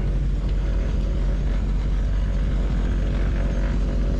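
Propeller engines of a small twin-engine plane running steadily, heard from inside the cabin as the plane taxis after landing.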